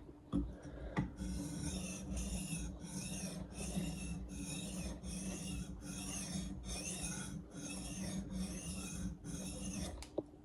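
A steel axe edge is scraped back and forth across an abrasive sharpener to smooth the edge, in a steady rhythm of about a dozen strokes, roughly two a second. A couple of light knocks come just before the strokes begin.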